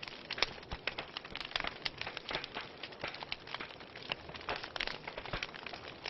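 Wood fire in a fireplace crackling, with frequent irregular pops and snaps over a soft steady hiss.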